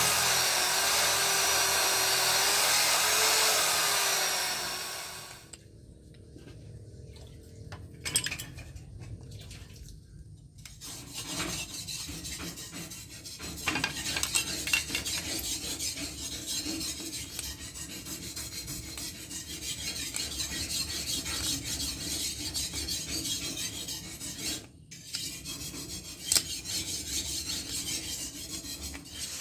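Handheld electric drill boring into a small steel block, its motor pitch wavering, stopping after about five seconds. After a quieter pause with a few knocks, a long steady rasping of metal worked by hand, a file shaping the slot joined from the drilled holes.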